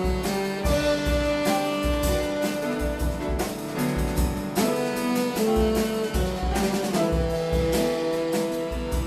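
Small jazz ensemble playing: saxophone holding long melody notes over piano, drum kit with cymbals, and a tuba bass line.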